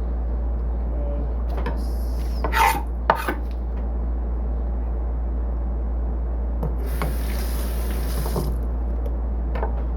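Kitchen handling sounds: a few knocks and clatters of utensils and produce, and a hiss lasting about a second and a half near the seventh second, over a steady low hum.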